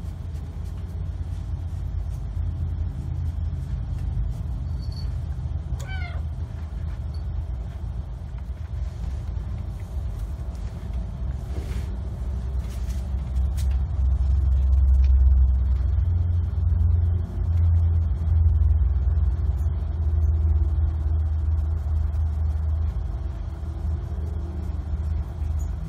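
A kitten gives one short meow about six seconds in, over a steady low rumble that grows louder midway.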